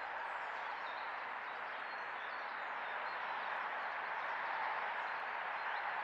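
A steady outdoor background hiss with faint, distant bird chirps above it.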